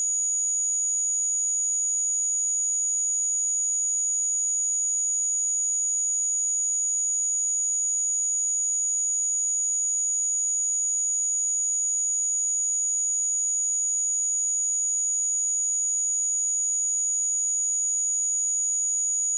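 A pure 6796 Hz sine-wave test tone, one steady high-pitched whistle held at constant pitch and level.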